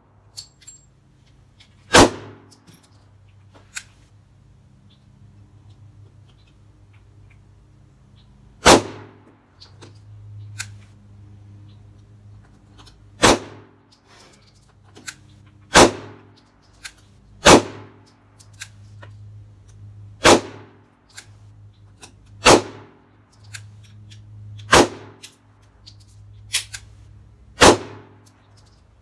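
Canik TP9 SFx 9mm pistol fired in slow, single aimed shots: about ten sharp cracks at uneven gaps of one to six seconds.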